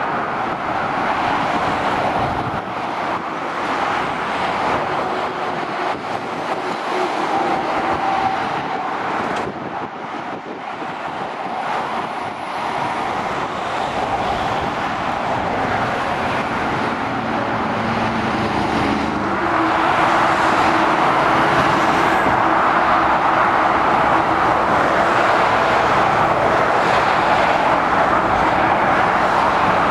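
Busy road traffic passing below: a steady rush of car tyres with the low hum of heavy diesel lorries, growing louder about two-thirds of the way through as traffic comes close.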